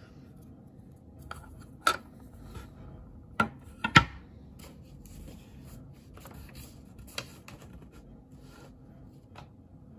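Light clicks and knocks of plastic model boxcar kit parts being handled and set down on a wooden table. A handful of sharp taps, the loudest about four seconds in, with quiet rubbing between them.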